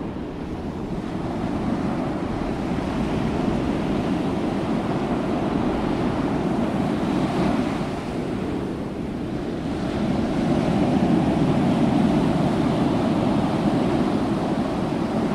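Waterfall and the whitewater below it: a steady, dense rushing of falling and churning water. It swells a little louder about ten seconds in.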